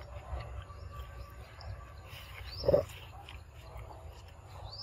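A short, loud animal call a little past the middle, over outdoor background with a bird's high rising whistle repeating a few times.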